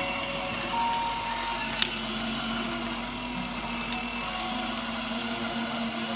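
Electric drive motors of a battery-powered BMW ride-on toy car running steadily as it drives along, with a single sharp click a little under two seconds in.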